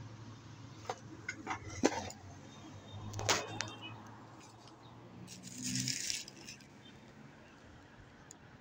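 White plastic network switch being handled and set down on cardboard boxes: a run of light clicks and knocks, two sharper ones about two and three seconds in, then a brief rustle of plastic packaging near six seconds.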